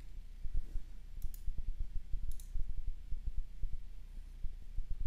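Soft, irregular low knocks and clicks throughout, with two sharper clicks, one about a second in and another a second later.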